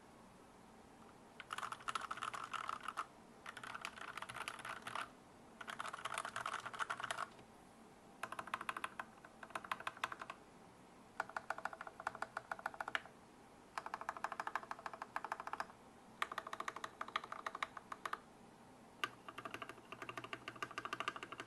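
Fast typing on a custom tenkeyless mechanical keyboard with lubed Gateron Yellow linear switches on an aluminium plate, in quick runs of a second or two separated by short pauses.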